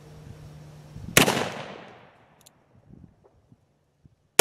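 Two shots from a Pietta 1858 Remington New Model Army "Sheriff" .44 caliber black powder percussion revolver, about three seconds apart: one about a second in and the next right at the end, each followed by a short echo that fades over about half a second.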